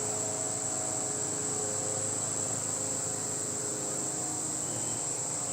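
Honeybees buzzing around an opened hive, a wavering low hum, with a steady high-pitched tone over it.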